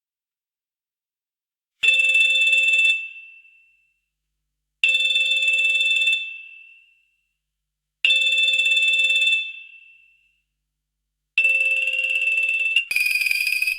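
Old telephone's electromechanical bell ringing in four bursts of about a second each, roughly three seconds apart, each fading as it stops. Near the end the last burst runs straight into a brighter, higher-pitched ring that is cut off.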